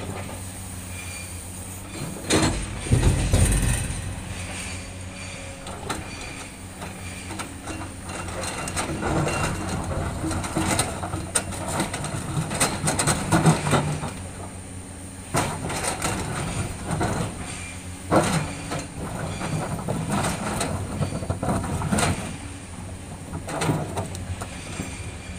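Komatsu hydraulic excavator working in boulders: its diesel engine runs steadily while the bucket scrapes and knocks against rock, with loud crunching clatters of stones at irregular moments, the biggest about three seconds in.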